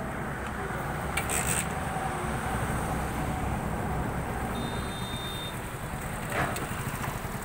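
Motorcycle engine idling steadily, with a short clatter about a second in and a knock near the end.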